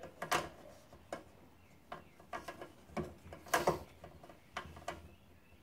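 Irregular clicks and knocks from handling an oil-filled heater's metal casing and its power cord while a wire is untangled, with louder knocks just after the start and about three and a half seconds in.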